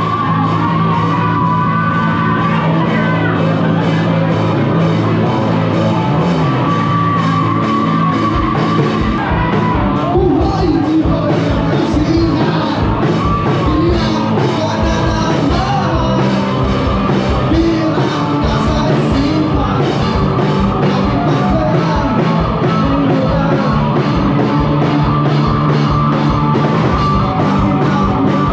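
A rock band playing live: singing over electric guitar and drums, with a steady kick drum coming in strongly about eight seconds in.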